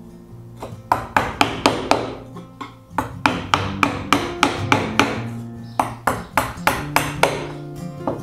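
A steel chisel being struck into hard wenge wood in quick runs of sharp, ringing taps, about four or five a second with short pauses between runs, as a mortise is chopped for a wooden plane body. Background music with sustained chords plays underneath.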